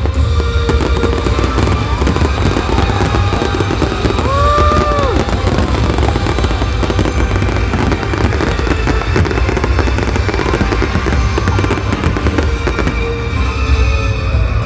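Fireworks display: a dense, continuous barrage of bangs and crackles, with music playing along.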